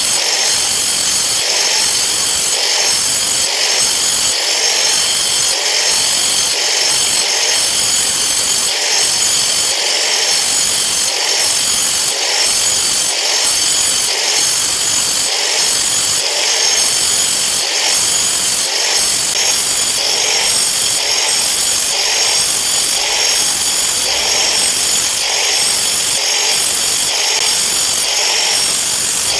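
Angle grinder with a 4-inch stone-cutting disc running loud and high-pitched as it cuts grooves across a sharpening stone, the grinding rising and falling in a steady rhythm a little faster than once a second as each cut is made.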